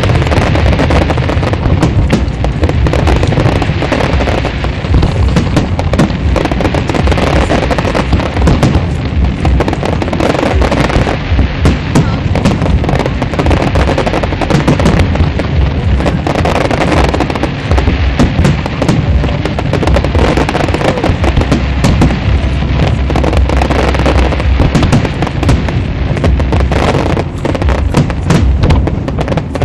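Aerial fireworks shells bursting in a dense, continuous barrage of loud bangs and crackles.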